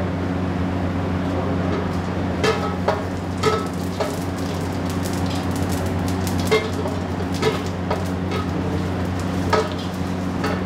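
Oil heating in an iron kadai with a faint sizzle, over a steady low mechanical hum of the kitchen. Several sharp metal clinks come as a ladle knocks against the kadai and the steel pots.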